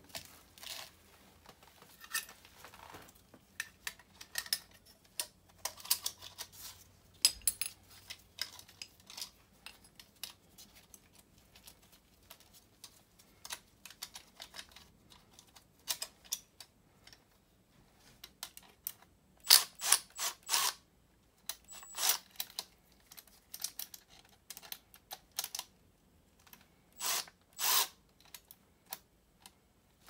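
Intermittent clicks, clinks and short runs of quick metal-on-metal clicking as the mounting bracket and bolts are fitted by hand onto a replacement HVAC blower motor. The loudest clusters come about two-thirds through and again near the end.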